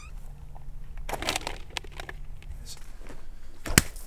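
Soft rustling and steps, then a water balloon bursts with a single sharp splat near the end.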